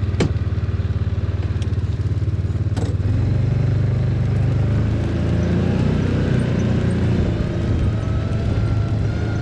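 Engine of a small farm vehicle running. It grows louder and fuller about three seconds in as the vehicle gets moving, with two sharp knocks, one just after the start and one near three seconds.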